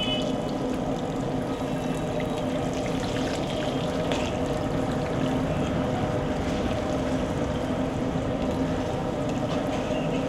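Batter-coated green chillies bubbling and sizzling as they deep-fry in a large kadai of hot oil, a steady frying noise over a low hum.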